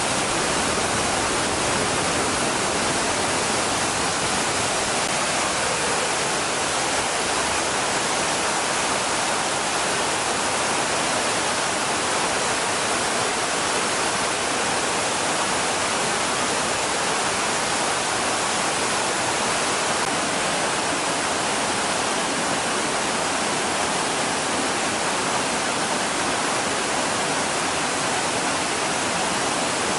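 Waterfall: water pouring and splashing steadily, a dense, unchanging rush of white noise.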